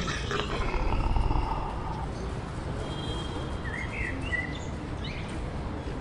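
Outdoor ambience: a steady low rumble with a few faint bird chirps in the second half.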